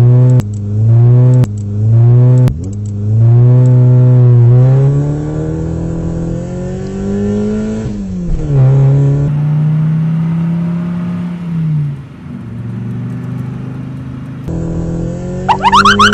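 Car engine sound effect revving: several short blips of throttle, then a long rising rev that drops back and settles into a steady run. A rapid pulsing sound with a rising pitch starts right at the end.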